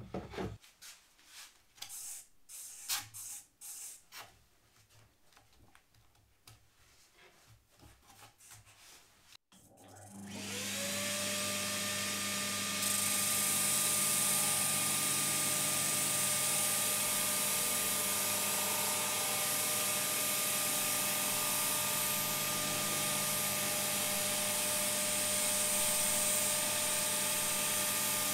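A few light knocks and clicks as the sanding table is fitted. About ten seconds in, a homemade disc sander driven by an old drill-press motor starts up with a rising whine, and the dust extractor, which switches on automatically with it, joins a few seconds later with a loud hiss. Both then run steadily.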